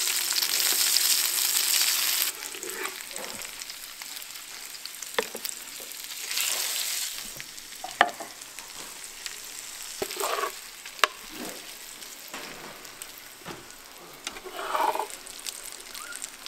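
Food sizzling loudly in a hot pan, cutting off abruptly about two seconds in. After it come quieter scattered clicks and knocks, with a shorter burst of sizzling midway.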